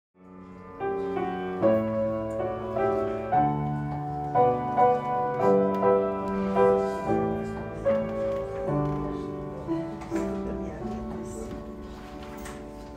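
Piano music, a melody over held chords, growing gradually softer in the last few seconds.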